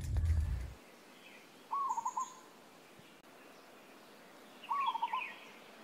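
A bird calling twice, about three seconds apart: each call a rising note followed by a few quick shorter notes, with faint higher chirps of other birds. In the first second a low rumble and rustle cuts off.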